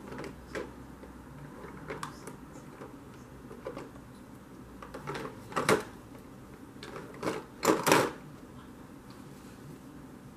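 Light clicks and taps of makeup items being handled while concealer is blended, with a sharp knock near the middle and a few louder knocks about eight seconds in.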